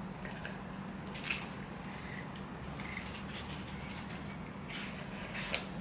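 Quiet room tone: a low steady hum with a few faint clicks, once about a second in and once near the end.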